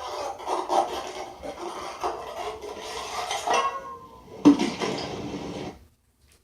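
Cartoon sound effect of clattering and rattling, like dishes or metal objects knocking together, for about four seconds. Then, about four and a half seconds in, a single loud crash with a short clattering tail that stops abruptly.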